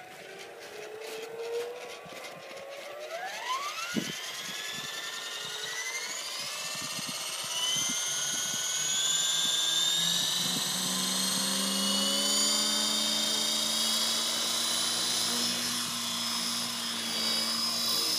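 Model helicopter's motor and rotor spooling up for takeoff: a whine that rises steadily in pitch and loudness over the first several seconds, then holds at a high, steady pitch.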